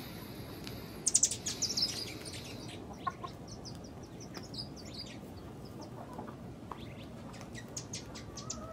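Backyard chickens clucking and chirping, with a quick run of sharp, high-pitched chirps about a second in and softer scattered calls after.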